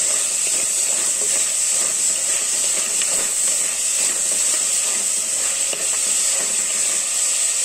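Sliced onions, green chillies and crushed ginger-garlic sizzling in hot oil in an earthenware pot, stirred with a spatula that scrapes lightly against the pot. The onions are being sautéed until soft.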